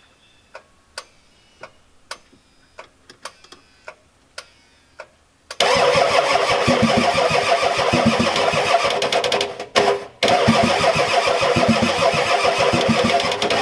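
Starter cranking a Ford 7.3L IDI V8 diesel, its compression strokes pulsing evenly, without the engine catching. It is typical of a failing injection pump not getting fuel to the injectors. The cranking begins about five and a half seconds in after a few faint clicks, stops briefly, then cranks again.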